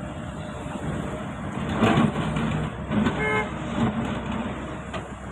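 A vehicle horn gives one short toot about three seconds in, over steady engine and road-traffic noise. The noise swells louder about two seconds in.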